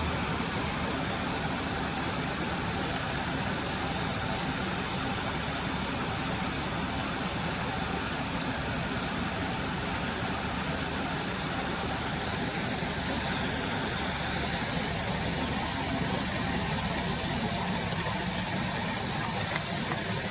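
Car engine idling steadily, with a steady high-pitched drone above it.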